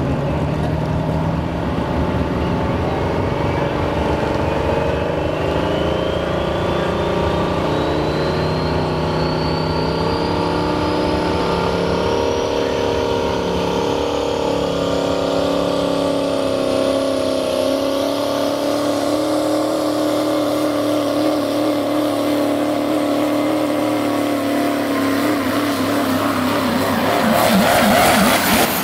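Diesel pulling-truck engine running steadily, with a thin whistle that climbs slowly and evenly in pitch. Near the end, a second diesel truck close by gets louder.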